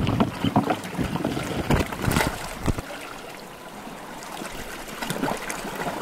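Seawater splashing and surging around a wooden outrigger canoe as it is pushed off through breaking surf: a run of irregular splashes and knocks against the hull over the first few seconds, then a softer wash of foam with a few more splashes near the end.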